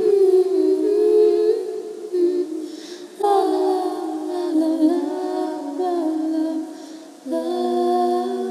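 A voice humming a slow, wordless melody in long held notes. It comes in three phrases, the second starting about three seconds in and the third about seven seconds in.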